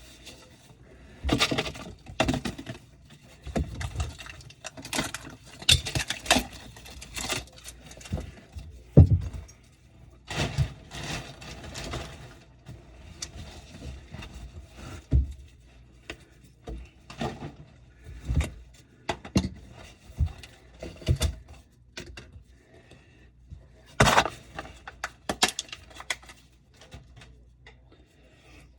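Irregular clattering, knocks and scrapes of tools and parts being handled, with a few sharper knocks standing out.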